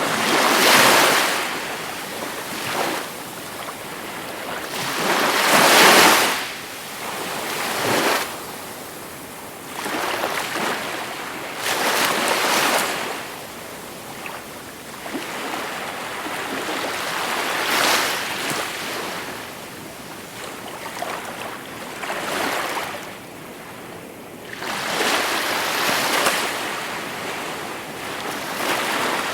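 Gentle sea waves breaking and washing up the shore, each wave a swell of surf noise that rises and fades every few seconds, the two loudest about a second and six seconds in.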